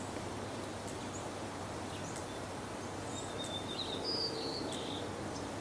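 Steady background noise, with a few faint high chirps about three and a half to five seconds in.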